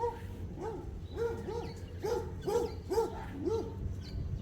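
An animal giving a rapid series of short calls, each rising and falling in pitch, about two a second.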